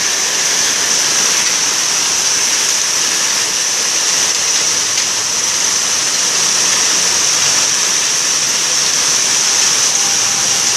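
Heavy rain from a hailstorm pouring down in a steady, dense hiss.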